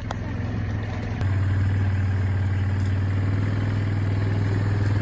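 Four-wheeler engine running steadily as it rides down a trail, getting louder about a second in.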